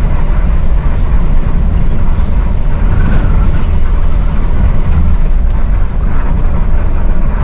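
Intercity bus driving along, its diesel engine and road noise rumbling steadily, heard from inside the driver's cab.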